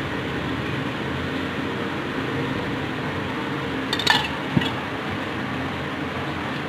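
Wire balloon whisk mixing flour into batter in a plastic bowl, with two sharp clinks of the whisk about four seconds in, half a second apart, over a steady background hum.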